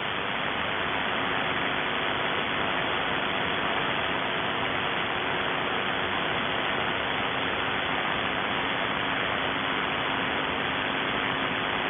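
Shortwave receiver static: steady band hiss in an upper-sideband voice channel with no signal present, a few faint steady low tones running under it.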